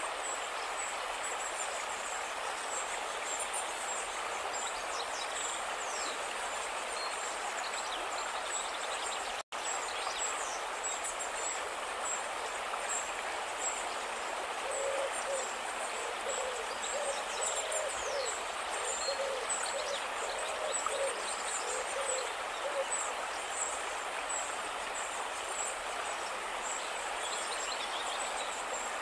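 Steady rushing of a river in flood, with thin high bird chirps over it. From about halfway, a bird hoots repeatedly for several seconds. The sound drops out for an instant about a third of the way in.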